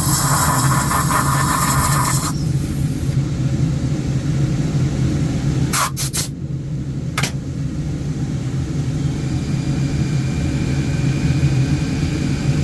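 Woodturning lathe running with a steady low motor hum. For the first two seconds a loud hissing scrape, typical of a tool cutting the spinning wood, and a few sharp clicks about six and seven seconds in.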